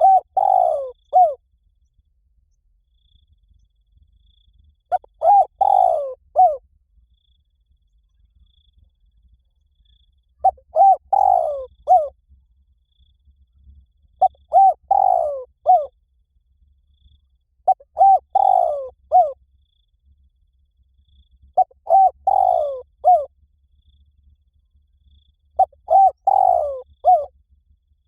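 Spotted dove cooing: seven short phrases of a few falling coo notes each, one about every four seconds, in the 'liw tan' calling style used to get other spotted doves to coo back.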